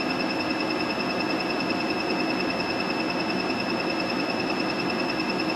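Diode laser hair-removal machine firing in fast mode: a rapid, unbroken string of high beeps that marks the laser pulses, over the steady hum of the machine's cooling system.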